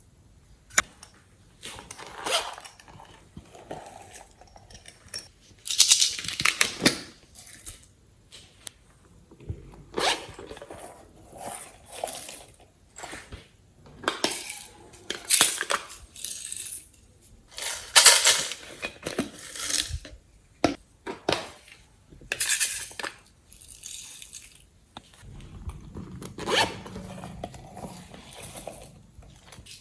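Slime being kneaded and squeezed by hand, making irregular wet squishing and crackling sounds in bursts every second or two, with short pauses between them.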